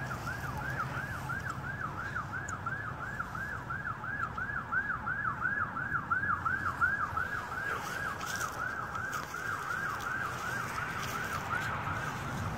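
Emergency vehicle siren in yelp mode: a fast rising-and-falling wail repeating about three times a second, which stops near the end.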